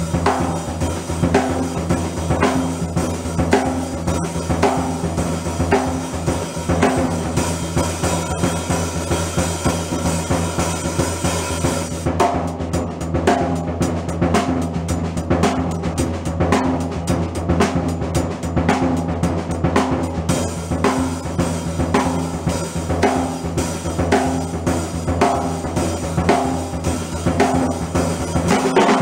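A drum kit being played in a steady beat, with the freshly restored 1962/63 Ludwig Super Sensitive chrome-over-brass snare drum cracking over the bass drum and cymbals.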